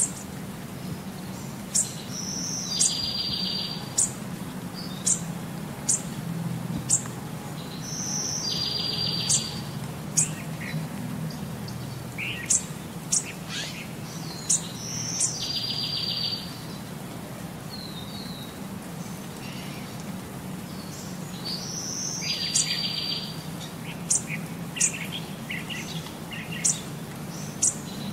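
Birds chirping, with short high chirps about once a second and a buzzy trill every six or seven seconds, over a low steady rumble.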